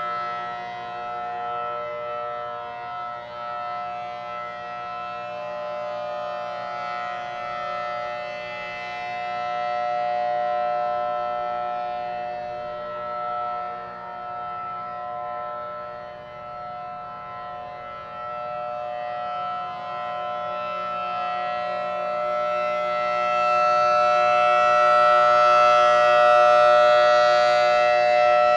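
Outdoor warning siren sounding a steady, unchanging tone, its loudness slowly swelling and fading, loudest near the end.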